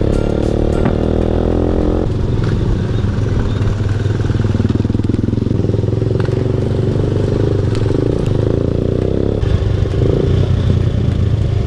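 Sport motorcycle's engine running as the bike is ridden through the streets, heard from the rider's own machine. The engine note is steady for about two seconds and then turns rougher and less even.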